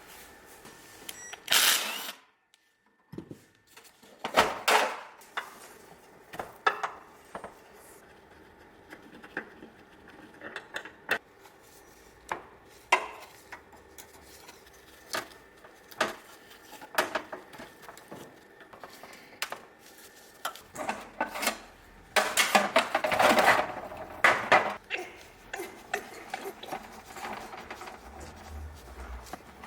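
Scattered clicks and knocks of tools and parts being handled while a car steering rack is worked on, with a denser stretch of clattering about two-thirds of the way in.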